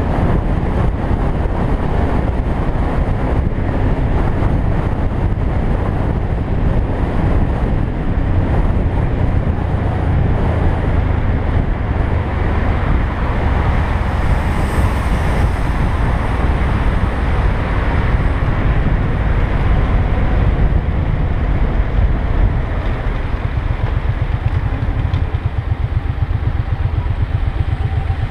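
Motorcycle riding in traffic, heard from a camera mounted on the bike: a steady rumble of engine and wind. Near the end the bike slows into a traffic queue and the engine settles into an even, regular beat.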